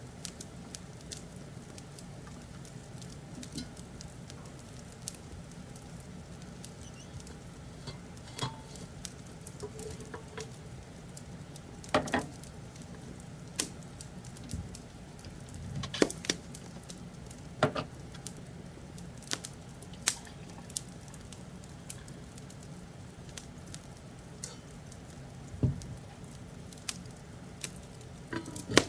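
Wood fire crackling: irregular sharp pops and snaps, a few of them louder, over a low steady rumble.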